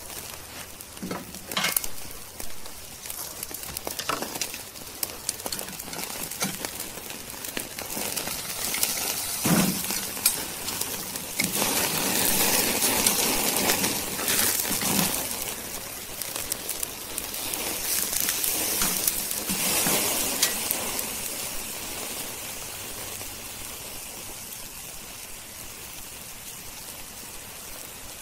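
Bone-in ribeye steak searing on a grill grate over hot charcoal, the final sear of a reverse sear: steady sizzling with scattered crackles and pops. It swells louder for several seconds in the middle as fat drips and flares up in the coals.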